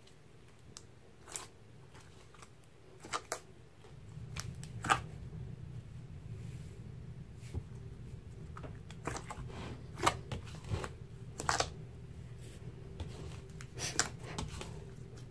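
A large batch of thick slime being stretched, poked and folded by hand in a bowl, giving irregular scattered clicks and pops as it is squeezed.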